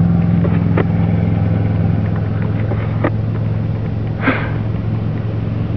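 A vehicle engine idling steadily, a low even hum. A few faint clicks and one short scratchy burst about four seconds in sit on top of it.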